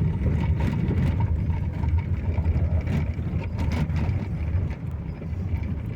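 A vehicle driving on a mountain road, with a steady low rumble of engine and road noise.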